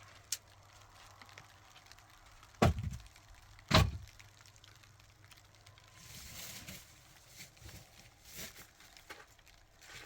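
Two heavy knocks about a second apart, followed by softer rustling and scraping.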